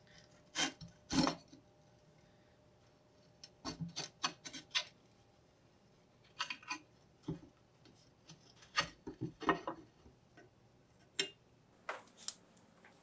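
Rusty steel strap plates of a bush axe being handled and worked loose against the axe blade and wooden handle: scattered light clinks, scrapes and knocks in short clusters with brief pauses between.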